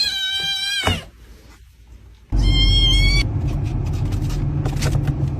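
A cat meowing, a call of about a second. Then a second meow rides over a loud low rumble that starts suddenly a little past the middle.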